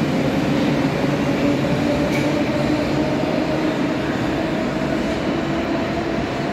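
Tehran Metro train pulling out of an underground station: a steady rumble with an electric motor whine that rises slightly in pitch.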